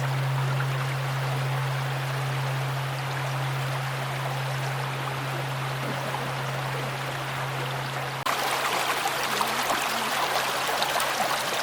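Large Japanese temple bell (bonshō) with its low hum lingering and slowly fading after a strike, over a steady rushing hiss. About eight seconds in the hum cuts off abruptly and the hiss turns brighter and crackly.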